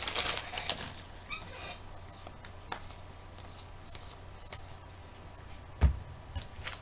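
Trading cards and their foil pack wrapper being handled: a crinkling rustle at first, then soft clicks and slides of cards being flipped, with a dull thump about six seconds in.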